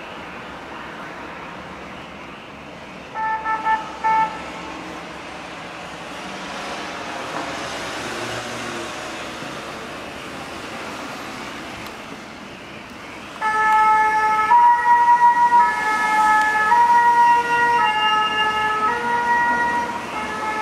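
French two-tone siren on a fire-brigade Mercedes Sprinter ambulance. It gives a short burst about three seconds in, then vehicle engine and road noise rises and falls. From about two-thirds of the way in the siren sounds continuously and loudly, alternating between two notes.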